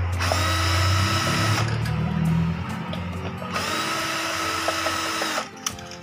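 Cordless drill-driver backing out screws from the MOSFET bracket of a solar charge controller. The motor runs steadily for about a second and a half, then runs on in shorter spells with changing pitch, and stops about five and a half seconds in.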